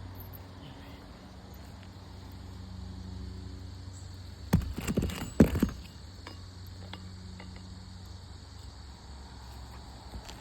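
A quick cluster of sharp knocks and clatter about four and a half seconds in, from roofing tools working at the nails under shingles, over a steady low hum.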